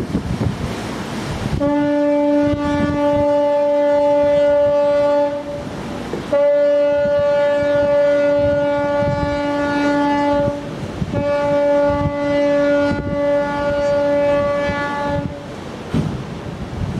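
Ship's horn sounding three long, steady blasts of about four seconds each, with short breaks between them: a departure signal, over wind on the microphone and the rush of the sea.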